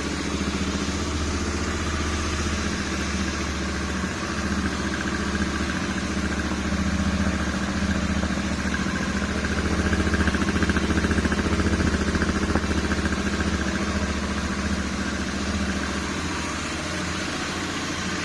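Royal Enfield Interceptor 650's parallel-twin engine idling steadily through its twin silencers, a little louder about ten seconds in.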